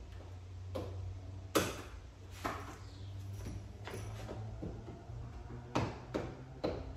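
Plastic hood snorkel inserts on a Dodge Charger Scat Pack being handled and snapped into the hood: a handful of sharp plastic clicks and knocks, the loudest about one and a half seconds in, over a steady low hum.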